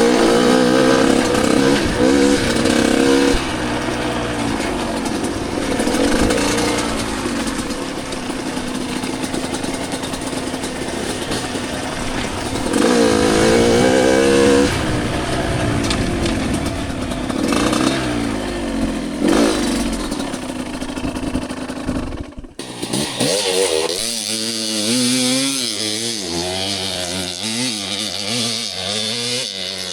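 Two-stroke dirt bike engines revving up and down while riding, the pitch rising and falling with the throttle. About 22 seconds in the sound cuts abruptly to a different stretch of a bike running.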